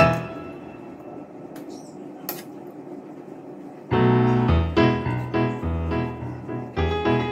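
Background piano music: a chord sounds and fades to a soft held stretch, then the tune comes back in with a bass line about four seconds in.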